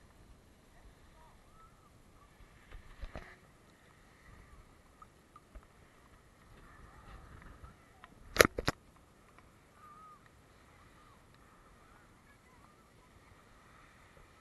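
Sea water lapping and splashing against a waterproof camera held at the surface in choppy waves. There are a few faint knocks about three seconds in and a louder cluster of two or three sharp knocks about eight and a half seconds in.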